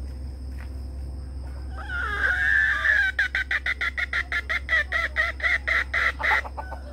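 Junglefowl-type rooster calling: a wavering call about two seconds in, then a fast run of short notes, about seven a second, that stops abruptly after about three seconds.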